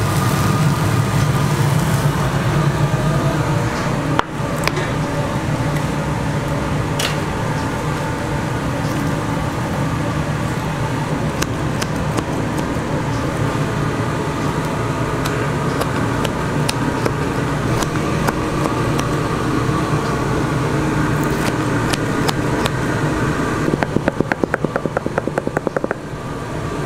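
A steady mechanical hum with a low drone, with a few scattered clicks and a fast run of clicking near the end.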